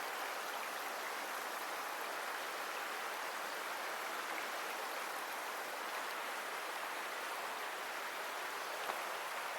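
A large river flowing, a steady even wash of moving water with no change throughout.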